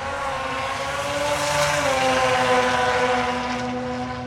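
Drag racing car engine held at high revs at full throttle, one steady high note with a slight dip in pitch, growing louder and then fading.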